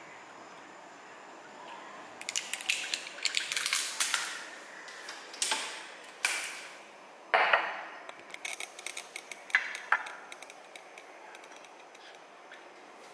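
Handling noises on a kitchen counter: scattered clicks, light clinks and short rustles as a sauce bottle and small dishes are moved about. They begin about two seconds in and die down near the end.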